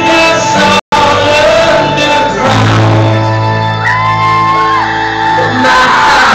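Live acoustic rock performance in a large hall: guitar-led music with singing and shouting over it. A brief dropout in the recording cuts the sound just under a second in.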